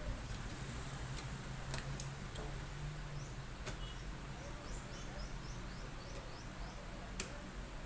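A bird chirping faintly, a run of about ten quick, high, falling chirps from about three seconds in, over a steady low hum, with a few sharp clicks scattered through.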